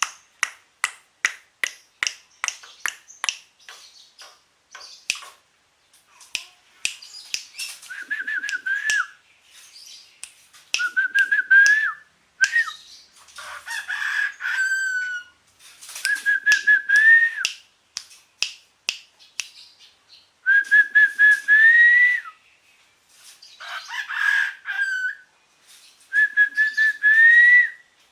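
A bird, called a suren, making chicken-like sounds: sharp clicking notes about two or three a second at first, then a series of whistled calls about a second long, each held level and rising at the end.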